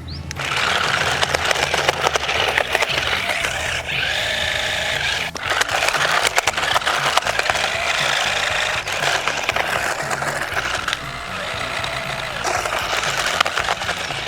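Toy RC stunt car's small electric drive motors whining up and down in pitch, with its plastic body and hollow tires clattering and rattling as it drives, spins and flips, over background music.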